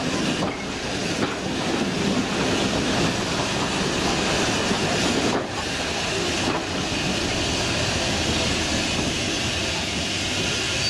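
Preserved steam train heard from an open carriage window, hauled by a small 0-4-0 saddle tank locomotive: a steady rumble of the coaches' wheels on the rails mixed with a hiss of steam.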